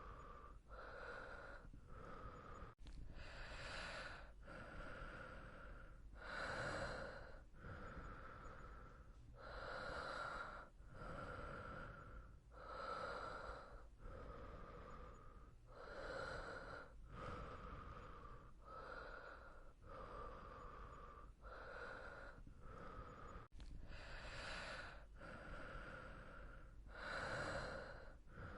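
Human breathing, slow and even, in and out, a full breath roughly every three seconds.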